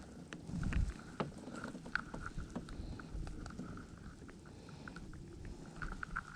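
Scattered light clicks and knocks of gear being handled aboard a fishing kayak, with a brief low rumble of wind on the microphone just before the first second.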